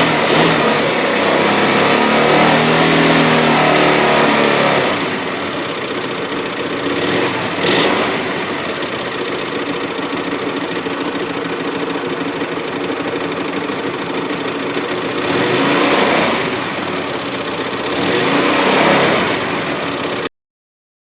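2007 Hyosung GT250R's 250 cc V-twin engine revved for a few seconds, dropping back to idle about five seconds in, then blipped twice near the end before cutting off. It clicks and clatters at idle and low revs, which the owner takes for valves needing adjustment or a worn cam chain tensioner.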